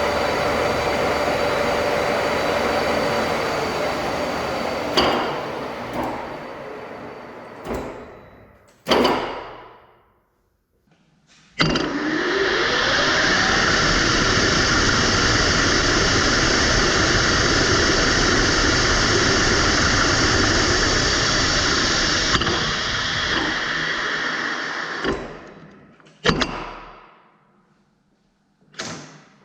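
Lathe spindle spinning a GoPro camera in its chuck. It winds down and stops, with a few sharp knocks about eight to nine seconds in. It starts up again at about twelve seconds with a rising whine and runs steadily at speed for about ten seconds, then winds down again with more knocks near the end.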